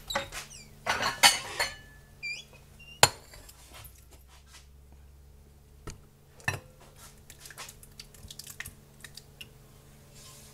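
Silicone spatula scraping and knocking against a nonstick frying pan as thick sausage gravy is worked out of it, a series of clinks and scrapes with the sharpest knock about three seconds in.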